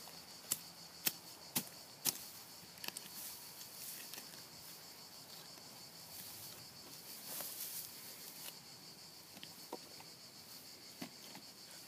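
A curved-bladed hand tool chopping into grassy soil: four sharp strikes about half a second apart, then quieter scraping and rustling of torn-up earth and turf with a few soft knocks. A steady high chirring of insects runs underneath.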